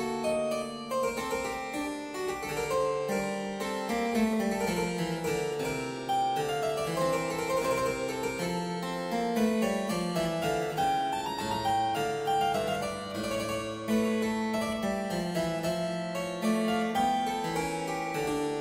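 Background music on a keyboard instrument, a continuous run of quick notes over changing lower notes.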